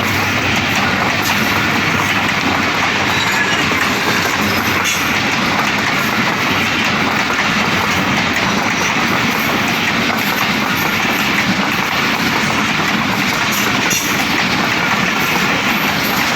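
Express passenger train running through the station at speed. Its wheels make a steady, loud rush on the rails, with clickety-clack from the rail joints.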